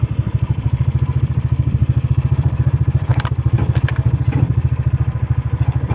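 Motorcycle engine running steadily under way, its exhaust beating in a fast, even rhythm, with a few short rattles and knocks about three to four seconds in.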